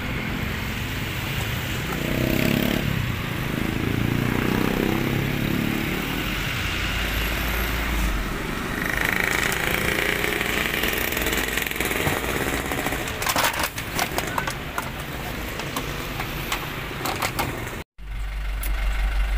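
Vehicle engines running in the street, with scattered knocks and clatter about two-thirds of the way in as sacks of rubbish are loaded into a garbage truck's steel bed. Near the end the sound drops out for an instant and gives way to a steadier low engine hum.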